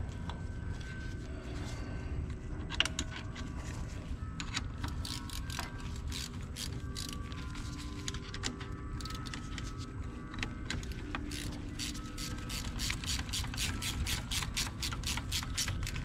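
Hand socket ratchet clicking as a bolt is worked at an ATV's front brake caliper. The clicks are scattered at first, then come in a fast even run of about five a second near the end.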